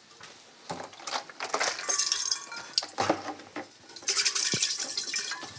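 Stainless steel insulated food jar being scrubbed clean at the kitchen sink: irregular scrubbing swishes with metallic clinks and knocks as the jar and its lid are handled.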